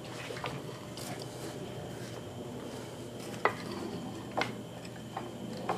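A few sharp metallic clicks and clinks from an old steel hydraulic floor jack as its lift arm is raised by hand, over a faint steady hiss.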